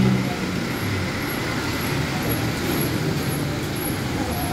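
Rain falling on a wet street mixed with the steady noise of passing traffic; a vehicle's engine close by fades out at the very start.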